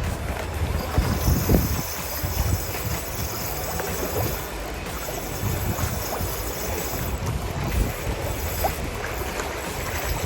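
Wind rumbling on the microphone over water lapping against a fishing boat, with a few faint knocks on the boat.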